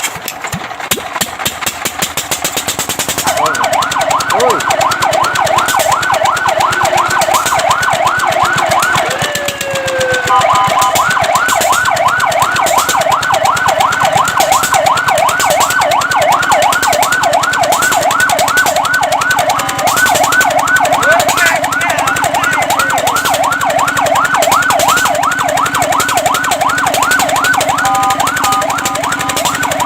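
Fire truck's electronic siren sounding a fast yelp, its pitch sweeping up and down several times a second, starting about three seconds in over a rapid clatter. Around ten seconds in it breaks with a falling tone, and near the end it switches briefly to short steady blips.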